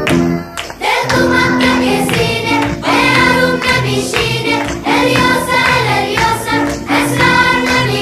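Background music: a song with singing voices, coming in about a second in after a short break in the music.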